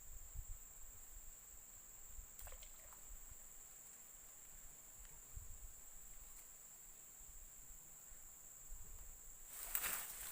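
Steady high-pitched insect drone, with low rumbling handling noise and a brief louder rustle near the end.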